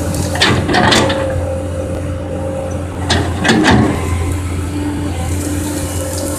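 Komatsu PC200 excavator's diesel engine running steadily under load, with two bouts of metallic clanking and scraping from the bucket and arm working, about half a second in and again about three seconds in.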